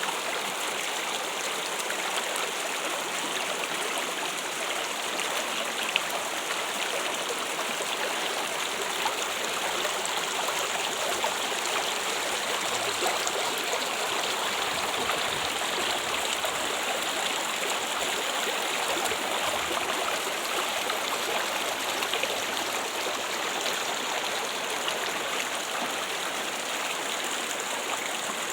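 Water trickling and splashing steadily in a continuous stream, with small sharp drips now and then.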